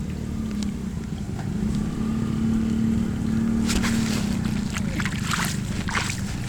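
Floodwater draining into a cleared culvert or drain, a deep steady rush, with irregular splashing and gurgling starting a little past halfway.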